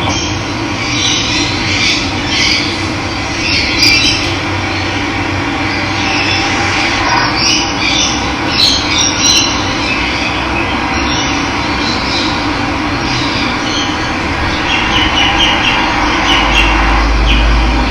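Steady rush of running water with wild birds chirping over it in short, repeated calls.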